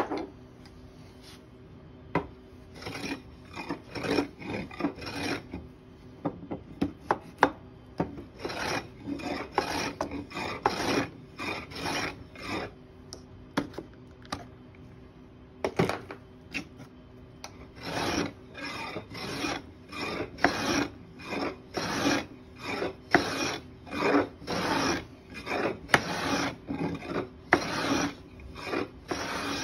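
Metal hand plane shaving a stick of East Indian rosewood: quick rasping strokes, roughly two a second, in three runs separated by pauses. A few sharp clicks fall in the pauses, with one loud click at the very start.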